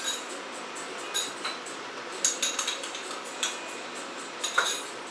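Kitchenware clinking: a series of sharp metal and crockery clinks, bunched in the middle and loudest near the end, over a steady background hiss.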